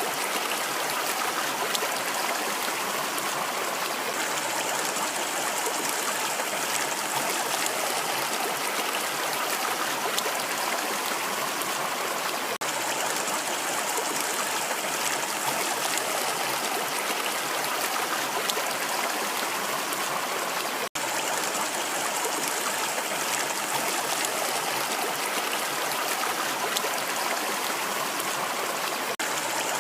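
Rushing water running steadily, an even hiss and splash like a flowing stream, with a few split-second dropouts.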